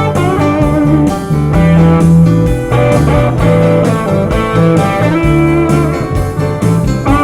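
Blues-style guitar music with a strong bass line and a steady beat, played back through a Bluetooth speaker under test.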